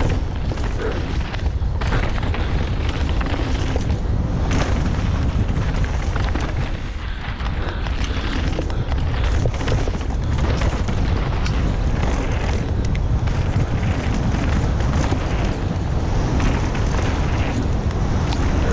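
Wind buffeting a helmet-mounted camera's microphone during a fast downhill mountain-bike descent, a constant low rumble, with tyres crunching over gravel and rocks and a steady clatter of knocks and rattles from the bike on the rough trail. It eases briefly about seven seconds in.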